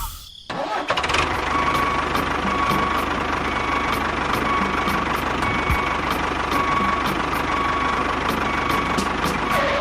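A small motor running steadily after a brief cut-out at the start, with a faint tone repeating at an even pace over it.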